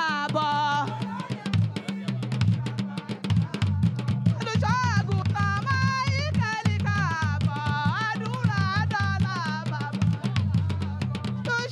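Live music amplified through loudspeakers: a busy, steady drum-and-percussion beat with a woman singing into a microphone, the voice most prominent in the second half.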